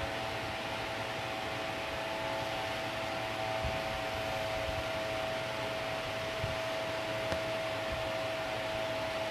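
Steady room noise: an even hiss with a constant mid-pitched hum, of the kind a fan or other appliance running in a small room makes.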